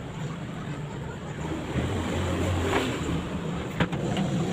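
Washing machine running with water churning and sloshing in the tub over a low motor hum, with a couple of sharp clicks in the second half.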